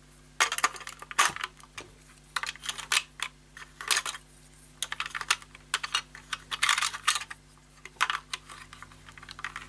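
Irregular plastic clicks and rattles from a toy car's body and parts being handled while a 9-volt battery is fitted into it.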